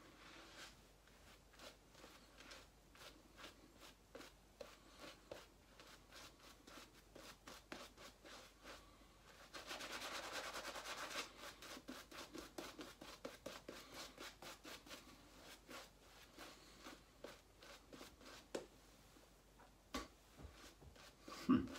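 Shaving brush scrubbing lather onto a stubbled face: rapid, rhythmic soft swishing and scratching strokes, with a denser, louder stretch about halfway through. The lather stays thin and won't build properly. A brief louder sound comes just before the end.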